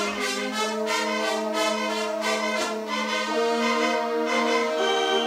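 Marching band brass (trumpets and trombones) playing held chords over a steady low note, with a few sharp drum hits in the first second and a half.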